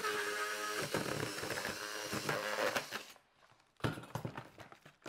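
Oscillating multi-tool buzzing steadily as its blade cuts through a plastic blister pack and cardboard box, stopping about three seconds in. A short rustle and clatter of the cut packaging being handled follows near the end.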